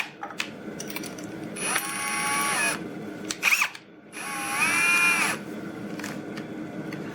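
Brushless cordless hammer drill triggered twice, each time spinning up to a steady whine for about a second and winding down. These are free runs with no bit biting into anything.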